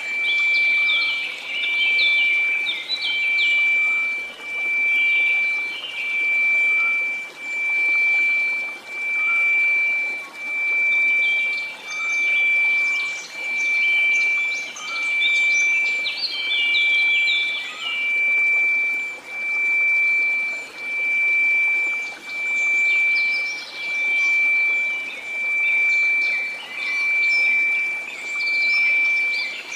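Steady pure sine tone at about 2334 Hz over a soft white-noise hiss, swelling and fading in loudness about every second and a half or two, with birds chirping through it.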